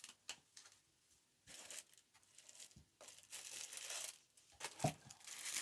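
Clear plastic wrapping around a set of makeup brushes crinkling in spurts as it is handled out of a tube-shaped package, with a few light clicks in the first second and a dull knock about five seconds in.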